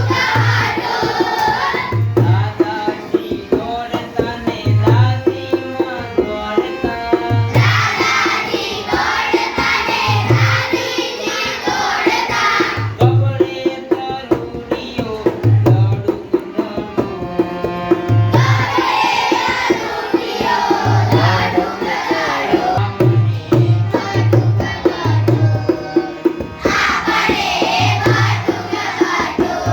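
A Gujarati children's song: sung verses alternate with instrumental interludes over a steady drum beat, which breaks into a quicker run of strokes past the middle.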